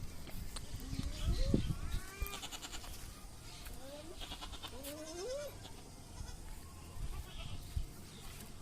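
Goats bleating: several short calls that rise in pitch, bunched in the first half or so.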